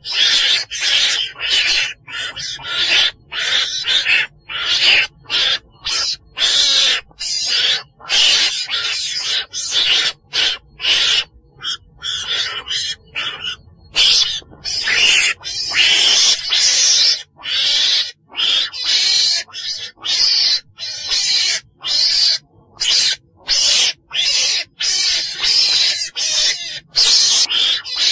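Lure recording of the chồn đèn, a small weasel-like wild carnivore, calling: harsh, raspy calls repeated in quick succession, about one to two a second, with short pauses between them.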